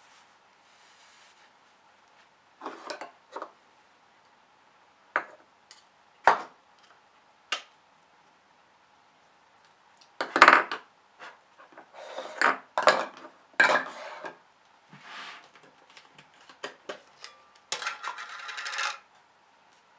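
Kitchen utensils knocking and clinking: a measuring cup, a spoon and a plastic tub set down and handled over a glass mixing bowl. The knocks come singly at first, then thicker from about halfway, with a short stretch of spoon scraping near the end.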